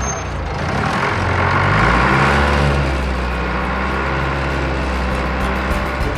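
Tow truck engine running, building up over the first couple of seconds and then holding a steady drone.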